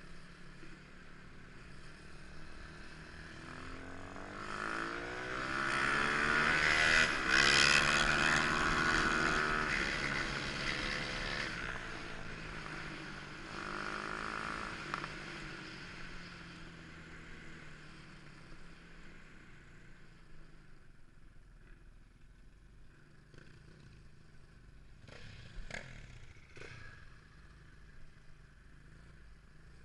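A motorcycle engine coming up in pitch and loudness, at its loudest about a quarter of the way in, then dropping in pitch and fading away, with a shorter second rise a few seconds later. A few clicks near the end.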